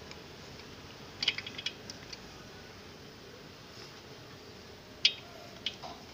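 Light clicks and rattles of a braided copper ground strap and its metal lug being handled: a quick cluster about a second in, a single sharp click near five seconds and a few more near the end, over a steady low hiss.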